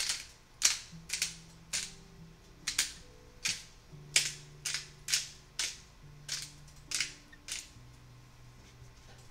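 Hand-twisted spice grinder cracking seasoning onto fish: a run of sharp, irregular crunchy clicks, about fifteen in eight seconds, that stops about a second before the end.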